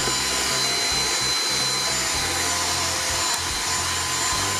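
Small handheld vacuum cleaner with a brush nozzle running steadily, a high whine over rushing air, as it cleans dust off a circuit board.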